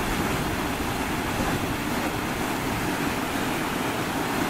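Steady rushing of a mountain stream cascading down a rocky waterfall.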